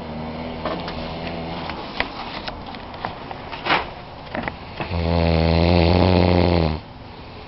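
A man snoring in his sleep. A quieter snore comes in the first two seconds, and a much louder one about five seconds in lasts about two seconds and stops abruptly.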